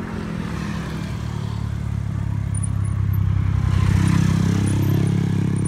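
A nearby motor vehicle engine running steadily, getting louder and fuller about four seconds in as it draws closer, over road noise.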